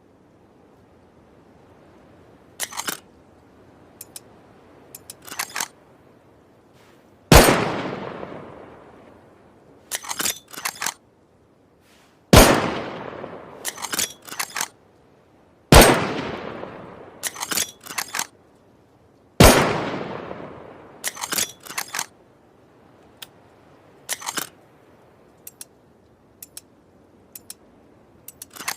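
Makeshift bolt-action rifle: four loud shots, each ringing out and dying away over a second or more, with the bolt worked in quick clusters of metallic clicks before, between and after the shots.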